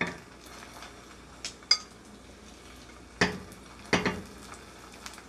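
Hestan NanoBond stainless skillet knocking and clinking on the stove grate, five or so sharp hits, as it is shaken. Butter sizzles faintly under a frying egg.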